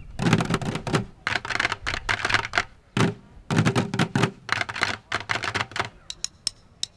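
Orange five-gallon plastic buckets struck with drumsticks in a fast drumming pattern, with a short break about three seconds in; about six seconds in the playing thins to sparser, sharper clicks.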